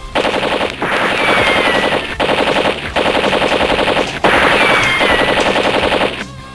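Machine-gun fire sound effect, rapid shots in several long bursts with brief breaks between them, stopping shortly before the end.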